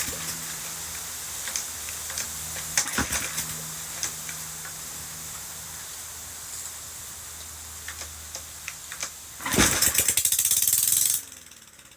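Briggs & Stratton push-mower engine running with its muffler removed: an open-exhaust low run broken by sharp pops. About ten seconds in it turns much louder for a second and a half, then stops abruptly.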